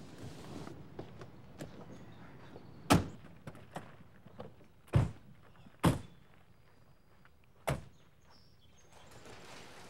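Car doors slamming shut: four separate solid thunks a second or two apart.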